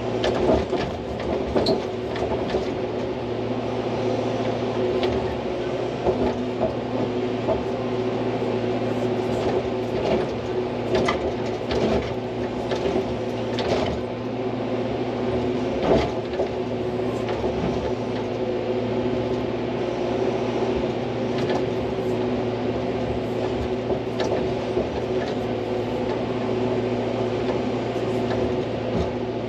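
Hydraulic excavator's diesel engine running steadily while it digs, with a few sharp knocks scattered through, the loudest about 16 seconds in.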